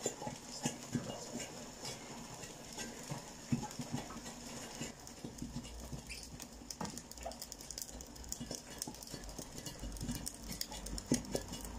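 A wooden spatula stirring and turning green vegetable leaves just scalded with hot water in a metal pot, with irregular light knocks and taps against the pot.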